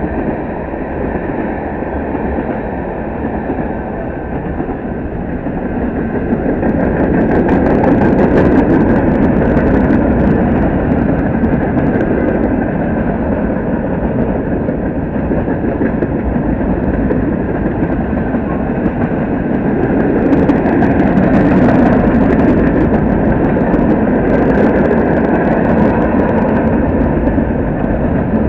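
Mixed freight train rolling past: a steady rumble of steel wheels on rail with sharp clicks and rattles that swell about a third of the way in and again in the latter part.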